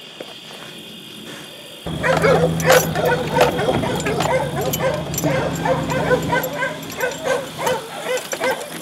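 Several hog-hunting dogs barking and yipping in quick, overlapping repeats, starting suddenly about two seconds in. A steady low hum runs underneath for a few seconds.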